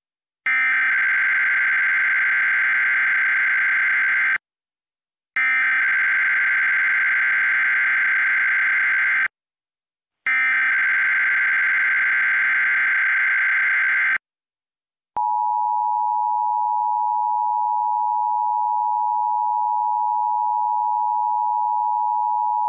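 Emergency Alert System test tones: three buzzing digital SAME header bursts of about four seconds each, a second apart, followed from about fifteen seconds in by the steady two-tone EAS attention signal (853 and 960 Hz).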